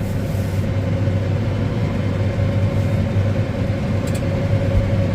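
Old combine harvester running steadily while cutting barley: a low engine drone with a steady whine above it.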